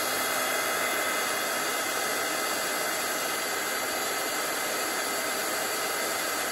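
Embossing heat tool running steadily, blowing hot air to melt white embossing powder on stamped snowflakes.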